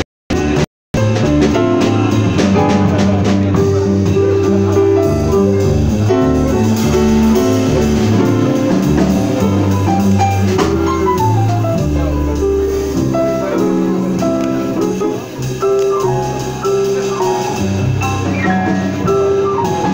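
Live jazz with piano and drums: chords and a moving low line, with quick falling runs near the middle and near the end. The sound cuts out completely twice, briefly, in the first second.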